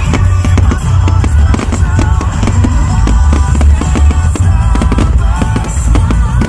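Loud music with heavy drums and a melody, with fireworks banging among the beats.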